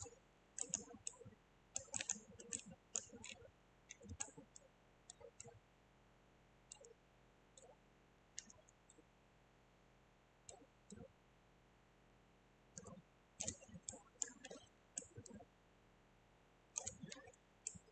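Faint, irregular clicks of a computer mouse, coming in scattered clusters.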